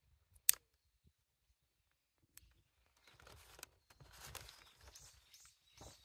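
A disposable lighter clicks sharply about half a second in, with a fainter click a couple of seconds later, then crumpled paper rustles and crackles as it catches fire.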